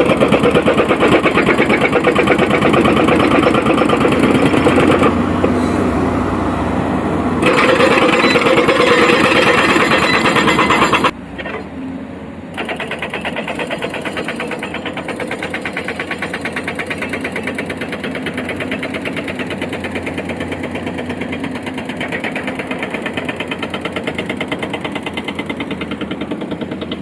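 Excavator's diesel engine running with a fast, even pulsing. The sound drops suddenly about eleven seconds in and carries on quieter.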